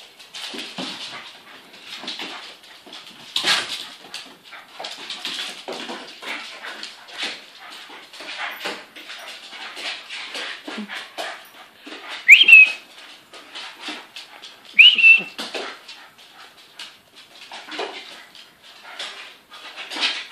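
A dog whimpering while it scrabbles and jumps, its claws clicking and skidding on a wooden floor. Twice, a little past the middle, it gives a loud, short, high-pitched whine that rises sharply in pitch.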